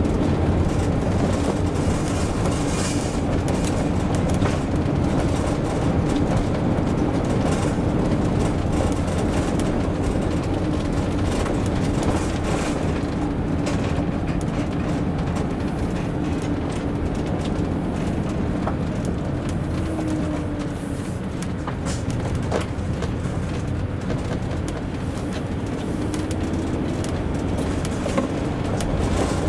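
Motorhome driving, heard from inside the cab: a steady low drone of engine and tyres on the road, with scattered light clicks.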